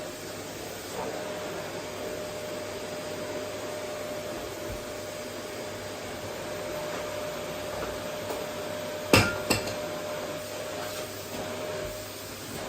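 Vacuum cleaner running steadily, a rushing hum with a faint held tone. About nine seconds in there are two sharp knocks in quick succession.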